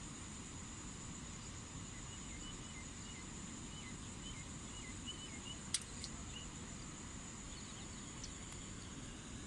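Steady high-pitched insect drone over low background rumble, with faint short bird chirps in the middle and one sharp click a little under six seconds in.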